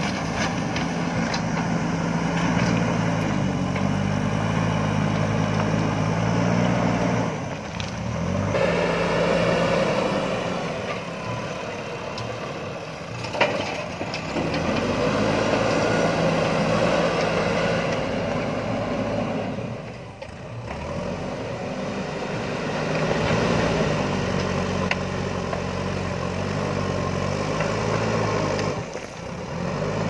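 JCB 3DX backhoe loader's diesel engine working under load, its pitch rising and falling as the front bucket scoops and lifts river gravel. A single sharp knock comes about halfway through.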